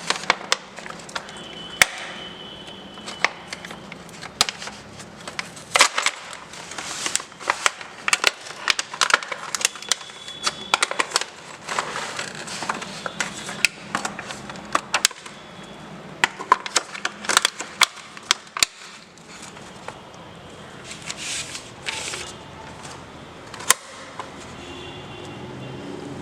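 Packaging being opened and handled: irregular clicks, crackles and rustles, in busy flurries with quieter gaps between.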